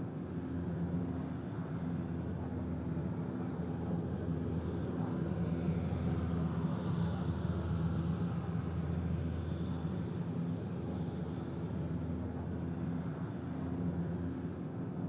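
Aircraft passing over: a steady low engine drone that swells and gains a hiss through the middle, then eases off near the end.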